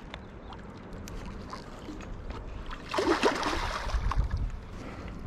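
A large hooked trout splashing and thrashing at the surface of the water near the bank, a noisy burst starting about three seconds in and lasting over a second.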